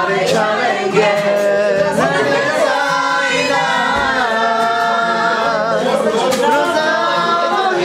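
Several people singing a song together in long, held notes to an acoustic guitar, with hand clapping.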